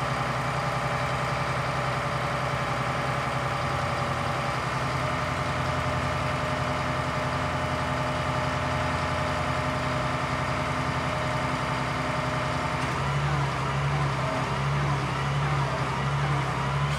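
Scania G 82 M ladder truck's diesel engine running steadily, powering the aerial ladder's hydraulics as the ladder lowers and retracts. About 13 seconds in the note changes to an even pulsing throb, about one and a half pulses a second.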